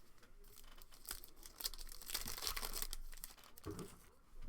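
Trading-card packs and cards being handled: crinkling and rustling of wrapper and cards, from about a second in for about two seconds.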